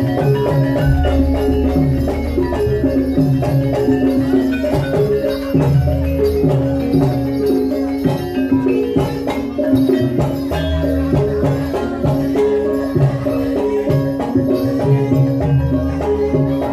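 Javanese gamelan ensemble playing lengger dance music: ringing bronze metallophones and gongs hold steady tones over a pattern of low hand-drum strokes.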